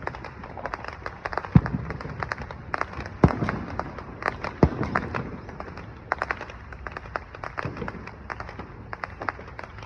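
Fireworks going off: many scattered pops and crackles, with three heavier bangs about a second and a half apart in the first half.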